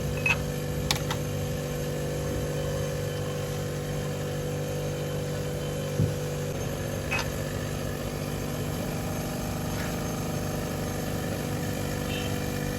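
Toyota Corolla Altis engine running steadily, with a few short clicks and a single dull thump about six seconds in.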